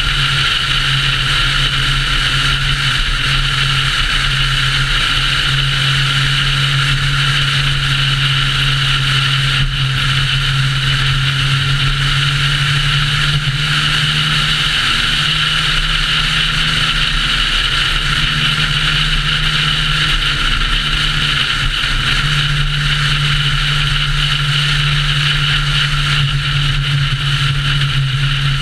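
Car cruising at highway speed: a steady low engine drone under loud, even road and wind noise. The engine note wavers and shifts a few times around the middle.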